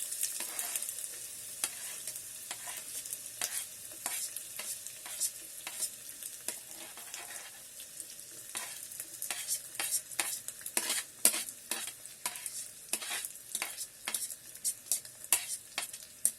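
Chopped onions frying in hot mustard oil in an electric kettle: a steady sizzle, with frequent sharp clicks and scrapes as a spoon stirs them against the pot, growing busier in the second half.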